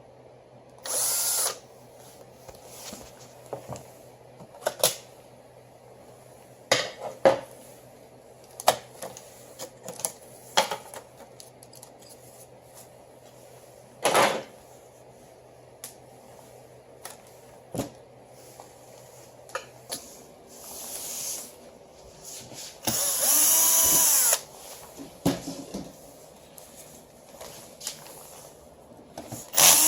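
Electric screwdriver or drill motor running in short bursts, three times, the longest about a second and a half in the second half, with many sharp clicks and knocks of parts and tools being handled in between.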